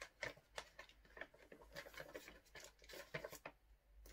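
Faint crinkling and rustling of a plastic mailing bag being handled and turned over, in short irregular crackles.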